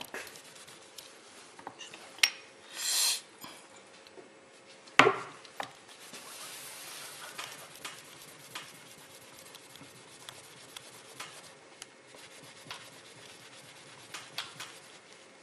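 A cloth rubbing and wiping the face of a small round metal-putty test piece to bring up its polish. A few light clicks and knocks come through it, the loudest about five seconds in, with a short hiss about three seconds in.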